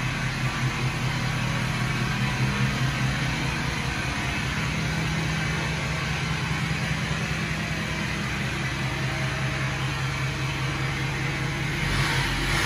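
2015 Ford F-250's 6.7 L Powerstroke V8 turbo-diesel idling steadily through its 4-inch exhaust; near the end the sound swells louder.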